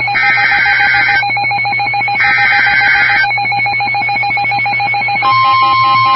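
NOAA Weather Radio emergency alert over a radio receiver: SAME digital header data bursts, each a harsh warbling screech about a second long, with a second's pause between them. About five seconds in, the steady 1050 Hz warning alarm tone begins, signalling that a warning is about to be broadcast. A steady hum runs underneath.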